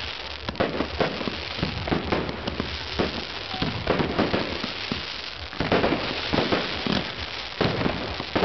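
Fireworks display: shells bursting in a rapid, irregular run of bangs and crackles, with several louder bursts about six and eight seconds in.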